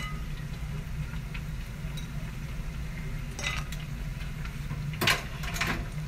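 A steady low hum, with a few light wooden knocks and taps about halfway through and again near the end. The knocks come as a hinged wooden plantain press (tostonera) is worked on a plastic cutting board and flattened plantain pieces are handled.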